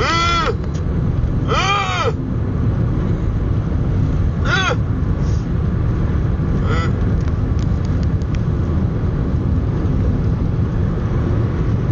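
A man's deliberately annoying vocal noise: a loud, nasal, caw-like call that rises and falls in pitch, made four times in the first seven seconds, with the later ones shorter. Underneath is the steady rumble of a car's road noise heard from inside the cabin, which goes on alone after the calls stop.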